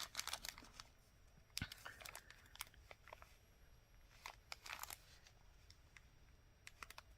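Faint handling noises from beads and their small plastic bead bags: scattered light clicks and brief crinkling rustles in a few short clusters.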